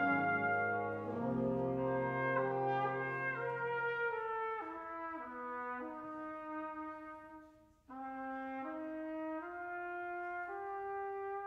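Wind ensemble brass playing slow, sustained chords in the Lento movement of a trumpet concerto. The sound dies away about two-thirds of the way through, then a new held chord comes in suddenly.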